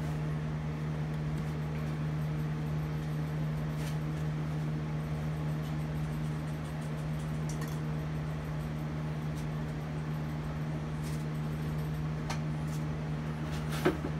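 A steady machine hum at one fixed pitch, with a few faint ticks and a sharper tap near the end.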